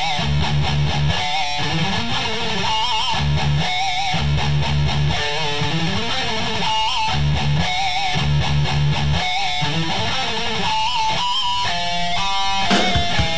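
Metal music with distorted electric guitars and bass: a riff of low chugging notes answered by short high lead phrases, repeating over and over. Near the end the guitars ring out a held chord.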